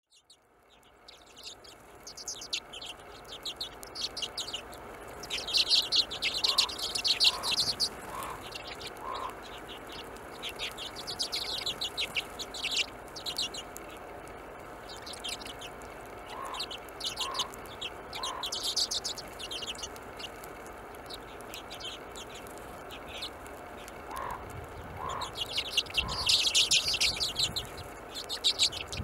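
A feeding flock of Hornemann's Arctic redpolls calling: many short, high chirps and twitters, building into dense chattering bouts about five seconds in and again near the end.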